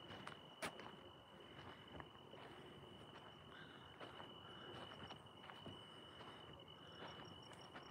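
Faint, steady high-pitched insect trill, with a row of quick higher chirps near the end. Scattered soft footsteps and small clicks, one sharper click just under a second in.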